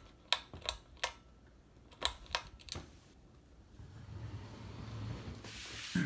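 Pull-chain switch on a Hunter Infiniti ceiling fan clicking six times, in two quick groups of three, then the fan motor's low hum building as the blades start to turn, with a short rush of noise near the end.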